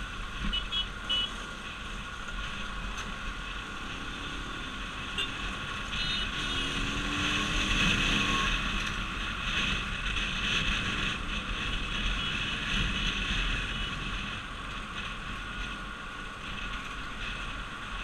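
Motorcycle riding through traffic, heard from on board: a steady rush of engine and wind noise, with the engine note rising as the bike speeds up about six to eight seconds in.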